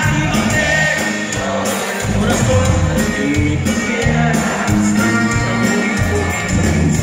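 Live norteño music, loud through the PA, led by a button accordion over a bass line that steps from note to note.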